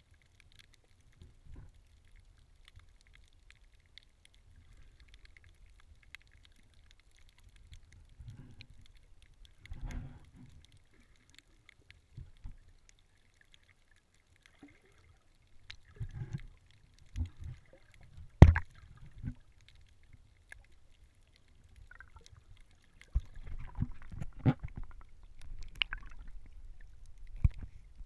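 Muffled water noise heard through an underwater camera: a low rumble with scattered knocks and clicks, one sharp knock standing out about two-thirds of the way through. Near the end the water noise gets louder and steadier as the camera nears the surface.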